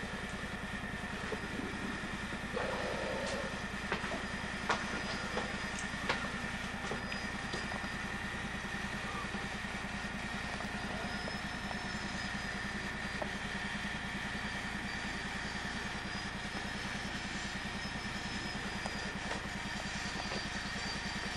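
A steady hum with a few light knocks and clicks in the first few seconds.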